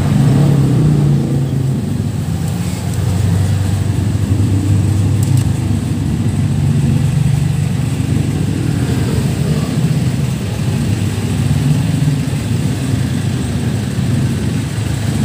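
Steady low rumble of a motor vehicle engine running, its pitch wavering a little.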